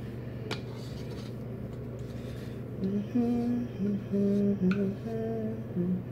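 A woman humming a short tune of held notes that step up and down, starting about three seconds in, over a steady low background hum; a single click about half a second in.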